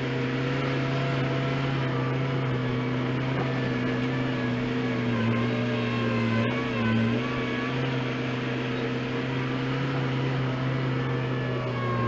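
New Holland LX665 skid steer loader's diesel engine running at steady revs as the machine works, its note dipping briefly twice around the middle.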